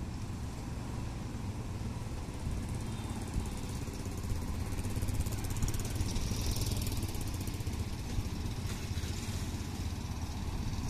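Small engine of a wooden outrigger fishing boat running steadily as the boat moves along, with a low, even rumble.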